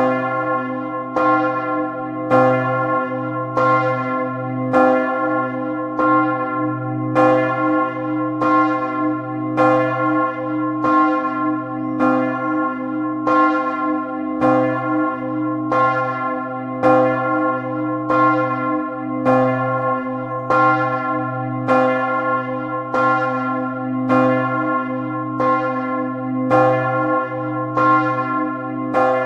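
Several church tower bells ringing together, with a strike about once a second over the steady hum of a deep bell.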